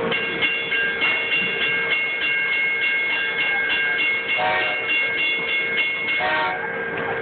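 Railroad crossing-signal bell ringing steadily, struck about twice a second, as a trackless kiddie ride train passes. The train's whistle gives two short toots, about four and a half seconds in and again just before the ringing stops.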